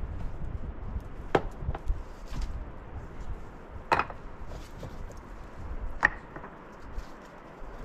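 Three sharp blows of a hand tool striking, about two seconds apart, with a fainter knock just after the first. A steady low rumble runs underneath.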